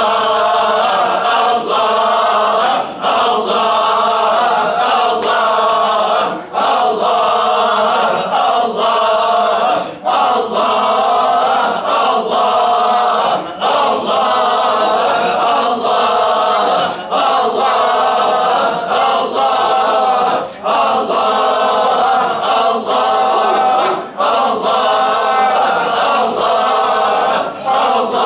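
A group of men chanting the single divine name "Allah" in unison in a Sufi dhikr, a continuous repeated chant with a brief dip about every three and a half seconds.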